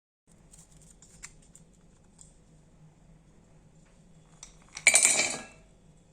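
Kitchenware being handled: a few faint light clicks, then about five seconds in a loud, brief clatter of utensil and dish lasting under a second.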